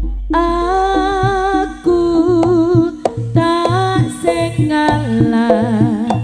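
Live jaranan music: a held melody line with a wavering pitch comes in just after the start, over regular low drum strokes.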